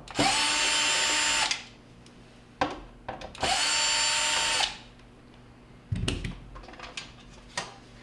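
Cordless drill backing screws out of a refrigerator's rear drain cover: two runs of a little over a second each with a steady whine. A few knocks and a clatter follow near the end as the cover is handled.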